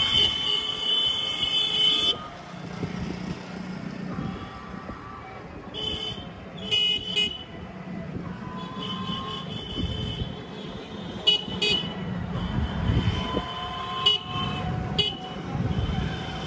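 Town street traffic heard from an open-sided rickshaw on the move: vehicle horns honk again and again, one long blast in the first two seconds and shorter toots later, over the steady rumble of road noise.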